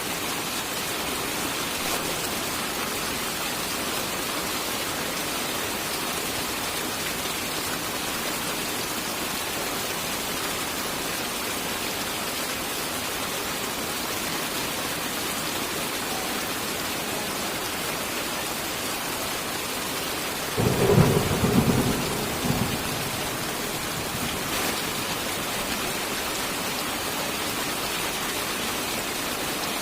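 Steady rain hissing, with a single clap of thunder about two-thirds of the way through that lasts about two seconds and fades away.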